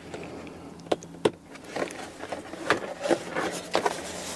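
Irregular sharp plastic clicks and knocks, about seven, as new push-in door panel retainer clips are slid and locked into a 2004 Jeep Grand Cherokee's plastic front door trim panel and the panel is handled.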